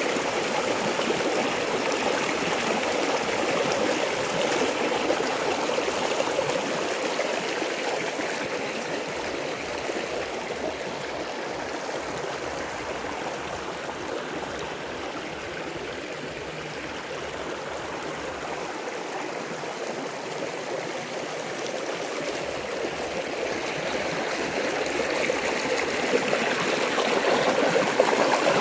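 Flowing water rushing steadily, like a stream or small cascade, easing off a little in the middle and growing louder again near the end.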